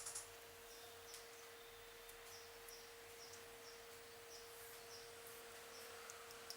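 Near silence: a faint steady hum, with faint short high chirps repeating about three times a second and a few faint clicks.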